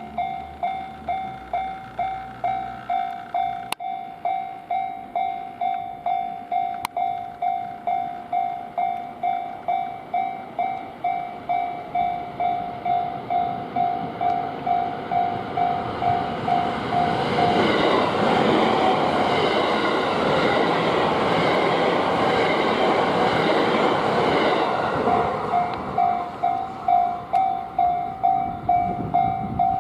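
Japanese level-crossing warning bell ringing steadily at about two strikes a second while a train approaches and passes. The train's running noise builds and drowns the bell for several seconds, then fades so the bell is heard again near the end.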